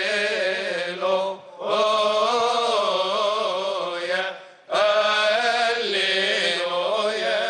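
Male voices chanting a melismatic Coptic liturgical hymn in unison, with long held notes whose pitch bends and wavers. The chant comes in three long phrases, with short breaks about a second in and again about four and a half seconds in.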